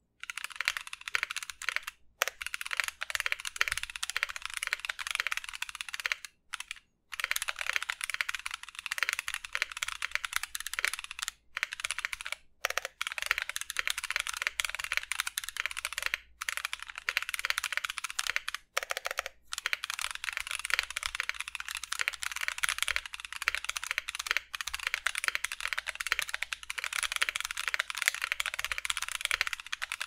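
Fast, continuous typing on a mechanical keyboard with stock, unlubed Gazzew Boba U4T tactile switches (68 g) and Cherry-profile PBT keycaps in an aluminum Tofu65 case: a dense clatter of keystrokes with a few brief pauses.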